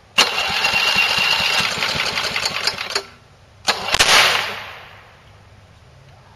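1981 Whirlwind push lawnmower's small engine, running on hydrogen fed from a balloon, is pull-started and runs roughly for about three seconds before it cuts out. A second short burst follows, ending in a sharp crack about four seconds in that fades away over about a second.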